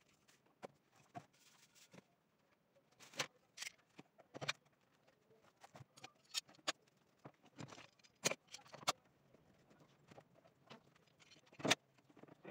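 Irregular knocks, clicks and rustles of hand tools and sandpaper being handled on a wooden workbench while a sanding belt is joined. The loudest knock comes near the end.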